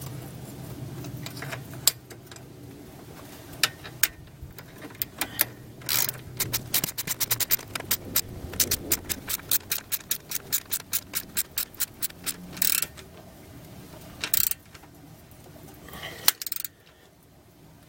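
Ratchet wrench tightening a bolt on a Jeep XJ's undercarriage: scattered metallic clicks, then a quick steady run of ratchet clicks, about four a second, through the middle, followed by a few more clinks.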